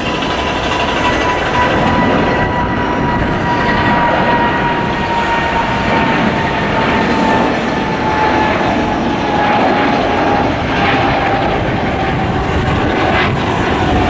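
Boeing 777-300ER's GE90 turbofan engines running hard as the jet climbs out after takeoff: loud, steady jet noise. A high whine inside it slowly falls in pitch as the aircraft passes.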